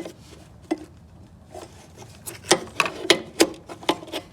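Hands and tools working at a stuck clutch master cylinder that won't come off its mount: sharp clicks and knocks, a few scattered ones at first, then a quick run of louder ones about two to four seconds in.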